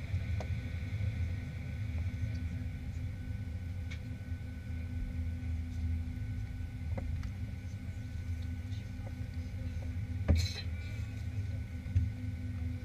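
Steady low drone inside a Boeing 737-800's cabin at the gate, with faint steady whine tones over it; a few small clicks and one sharper knock about ten seconds in.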